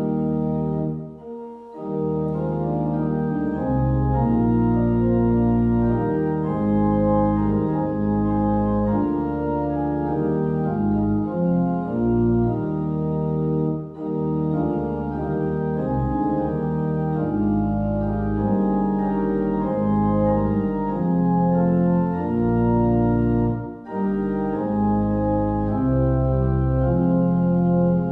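Organ playing a slow piece in sustained chords, phrase by phrase, with three short breaks between phrases.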